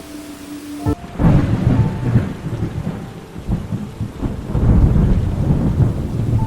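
Thunderstorm: a loud low roll of thunder over steady rain, starting suddenly about a second in and rumbling on in waves.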